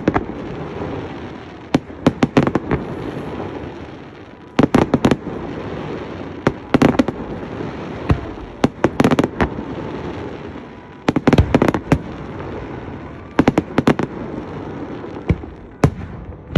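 Aerial fireworks display: shells bursting in quick clusters of sharp bangs, a new group every second or two, over a continuous low background rumble.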